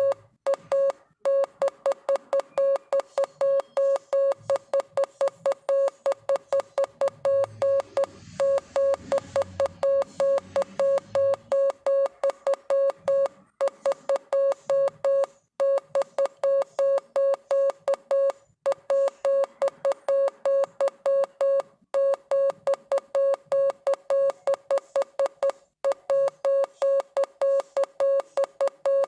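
Morse code sent as a single mid-pitched beep, keyed on and off in rapid short and long pulses, about four or five a second, with a slightly longer pause every few seconds between words.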